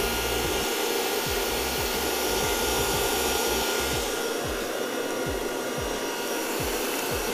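Electric mixer running steadily, whipping eggs.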